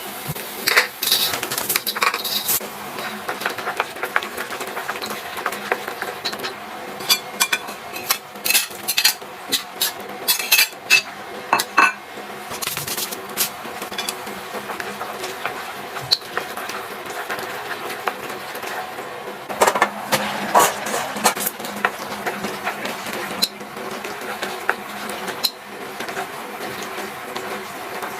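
Utensils clinking and scraping against pots and bowls during kitchen work, in irregular clusters of sharp clinks over a low steady background.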